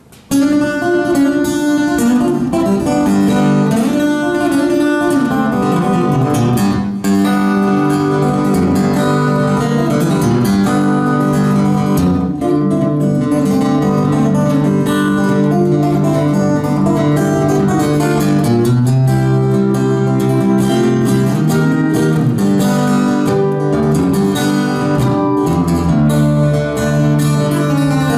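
Solo steel-string acoustic guitar played fingerstyle: a dense run of plucked notes and chords at a steady pace, starting abruptly as the piece begins.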